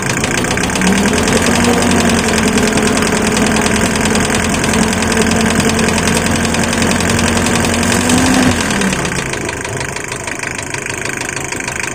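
Mazda Bongo's four-cylinder diesel engine running with a knocking diesel clatter while air is bled from its injector pressure lines. Its pitch rises about a second in, holds, and drops back near the end.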